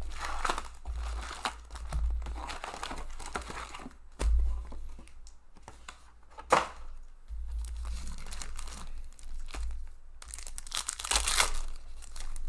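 Foil trading-card packs and plastic wrapping crinkling as a box of Upper Deck hockey card packs is unpacked and a pack is torn open. There is a sharp tap about six and a half seconds in, and a louder burst of crinkling and tearing near the end.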